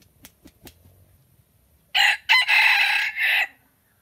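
Red junglefowl rooster crowing once, a short crow of about a second and a half that starts about two seconds in, with a brief break near its start. A few faint clicks come before it.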